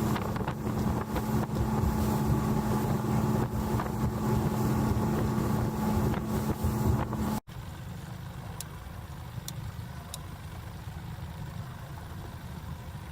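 Motorboat engine running steadily with wind and water noise. It cuts off abruptly about seven seconds in, giving way to a much quieter low engine rumble.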